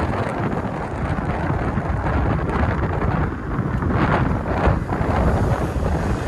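Wind buffeting the microphone of a camera carried along a street on a moving vehicle: a loud, uneven rumble with gusts, over traffic and road noise.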